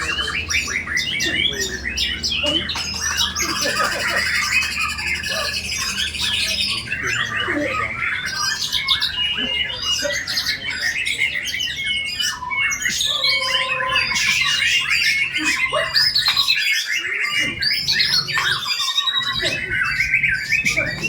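White-rumped shama (murai batu) singing without a break: a dense run of quick, varied whistles, trills and harsh chattering notes, its song packed with mimicked fill-in phrases, with a fast high trill about four seconds in.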